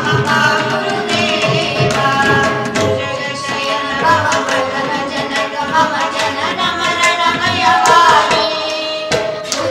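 Devotional Kannada bhajan (a dasa kriti) sung by a woman and a boy, with steady hand-drum accompaniment.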